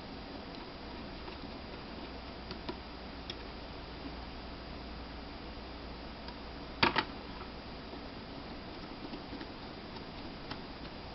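Faint small clicks and taps of a small Phillips screwdriver and screws being worked into a laptop hard drive's metal case, over a steady hiss; a sharper double click about two-thirds of the way through.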